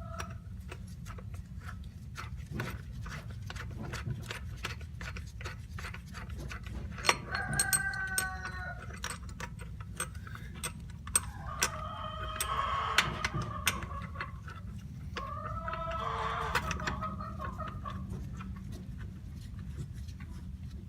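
Rapid irregular clicking of a ratchet wrench as the clutch bolts are tightened down. A rooster crows three times in the background.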